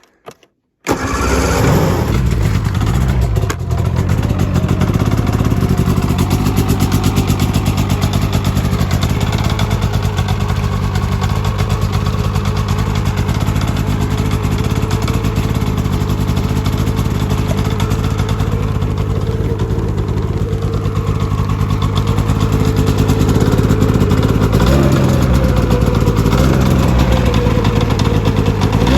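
2006 Polaris 600 RMK HO snowmobile's two-stroke twin engine starting up about a second in, then running steadily. Near the end it is revved briefly twice, the pitch rising and falling back. This is the first run after a drive belt replacement, to check the belt tension.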